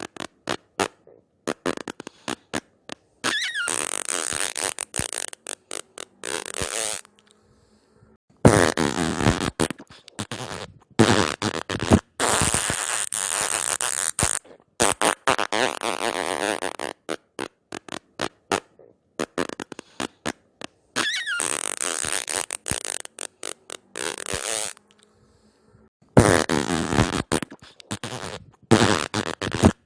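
A string of fart sound effects: rapid sputtering blasts alternating with longer drawn-out ones, separated by a few short silent pauses.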